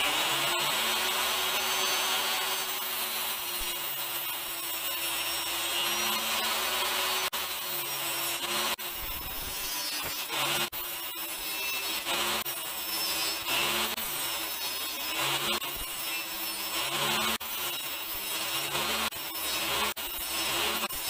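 DeWalt DWE7492 10-inch table saw running and cutting pallet-wood boards on a crosscut sled, one short cut after another. The motor pitch dips and recovers with each pass as the blade takes load.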